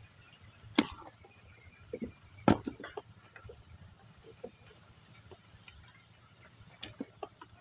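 A handful of sharp knocks and wet clicks as a hand rummages through a plastic tub of freshly caught small catfish, shrimp and leaves, the loudest about a second in and again about two and a half seconds in. Behind it, a steady high-pitched insect drone.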